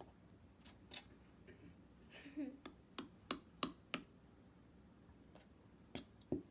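Scattered short, sharp clicks and taps from handling a plastic glue bottle and mixing bowl while glue is squeezed out, with a brief rustle a little after two seconds and a quick run of about five taps around three to four seconds in.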